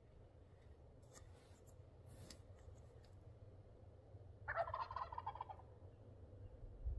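Wild Merriam's turkey gobbler gobbling once, a rapid rattling call lasting about a second, about four and a half seconds in.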